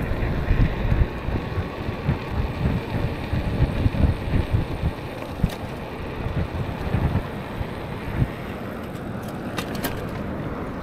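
Wind buffeting the microphone of a moving e-bike, a gusty low rumble over road and tyre noise, with a few light clicks about halfway through and near the end.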